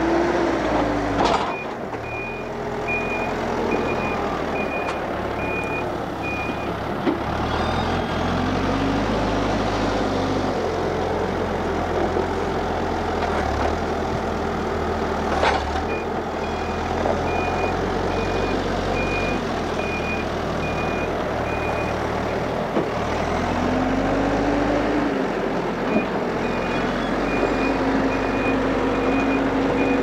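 Hidromek HMK 102S backhoe loader's diesel engine running, its pitch rising and falling as it works, while its reversing alarm beeps steadily in three separate runs.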